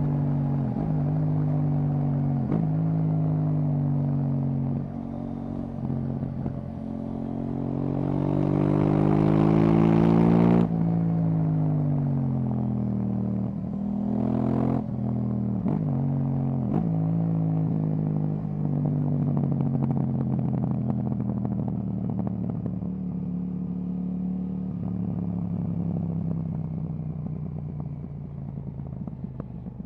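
KTM 790 Duke parallel-twin engine through an Akrapovic exhaust, ridden on the road. It pulls hard, rising in pitch for several seconds to a peak about ten seconds in, cuts off sharply, then winds down. Brief dips in the engine note along the way sound like gear changes.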